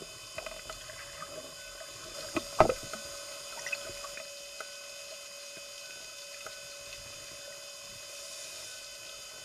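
Underwater ambience heard through a camera's underwater housing: a steady hum with faint scattered clicks, and one sharp knock about two and a half seconds in.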